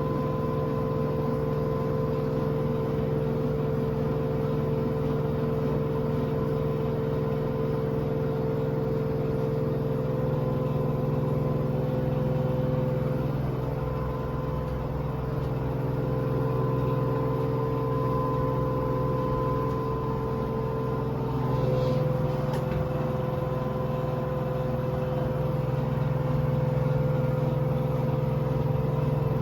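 Washing machine on its maximum-speed spin cycle: the drum and motor running with a steady hum and whine that shifts slightly in pitch now and then.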